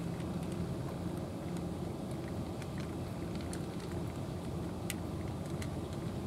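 A steady low engine hum, with faint irregular clicks of a cat chewing wet food close by.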